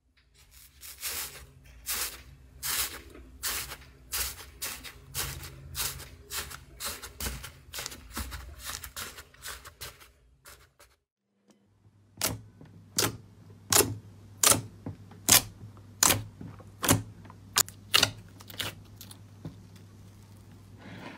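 Dried crust of a matcha iceberg slime crackling and crunching as fingers press it and break it into plates, crisp crunches about twice a second. After a short break near the middle, a different slime being worked gives sharper single clicking pops, about one to two a second, over a faint steady hum.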